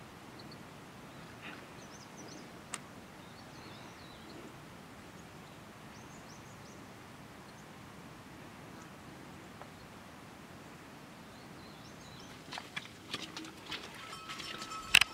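Steady outdoor hillside ambience with a few faint, short bird chirps. From about twelve seconds in, a run of close clicks and knocks starts, loudest near the end.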